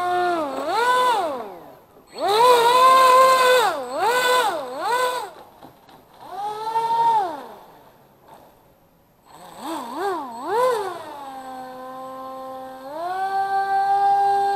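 RC airboat's electric brushless outrunner motor and three-blade prop whining, its pitch rising and falling in repeated throttle bursts. It drops to a brief lull about two-thirds of the way through, then holds a steady, higher pitch near the end.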